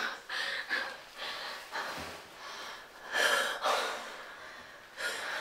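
A woman sobbing in ragged, gasping breaths, about four heaving breaths across the few seconds.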